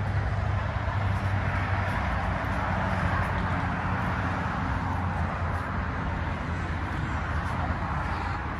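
Steady background noise: a low, fluttering rumble under an even hiss, with no distinct events.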